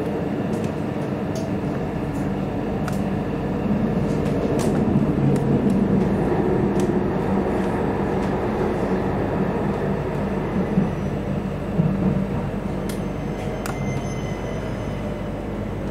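Steady mechanical rumble with scattered clicks.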